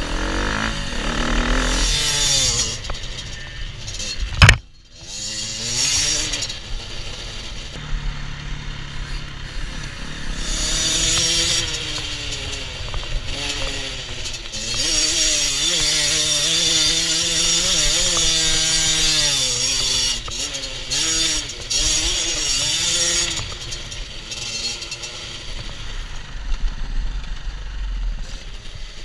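Small two-stroke 50cc enduro motorcycle engine (Beta RR 50 Factory) revving up and down repeatedly while riding, with a sharp loud thump about four and a half seconds in.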